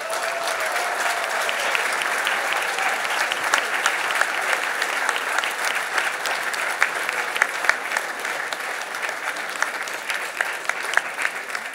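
A large audience applauding steadily, a dense patter of many people's hand claps.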